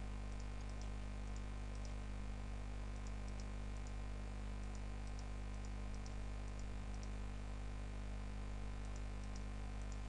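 Faint, scattered clicks of a computer mouse and keyboard, some in quick little clusters, over a steady low electrical hum.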